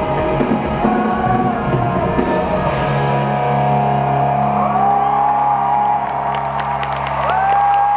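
Live rock band playing, with an electric lead guitar whose notes slide up in pitch over sustained low notes. The drums drop out about three seconds in.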